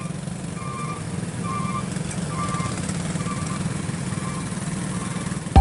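Motorcycle engines running steadily in a moving convoy, with a short high beep repeating about once a second.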